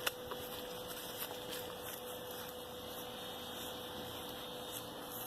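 Faint steady hum holding one pitch over a low background hiss, with a sharp click right at the start and a few faint ticks.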